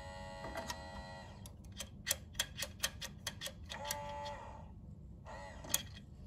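Thin steel gap verification tool clicking and ticking against the grill's stainless steel as it is worked in under the platen, about three sharp clicks a second, with two short squeals of metal friction as it turns under. A steady tone sounds at the start and stops about a second in.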